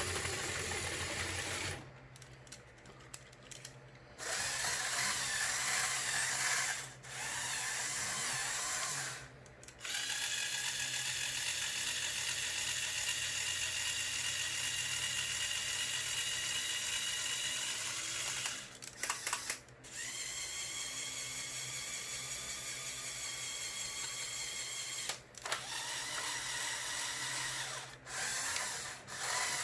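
Small electric motors of a motorized Lego Technic excavator whirring through their plastic gear trains. They stop and start again several times, with the whine rising in pitch as a motor spins up about twenty seconds in.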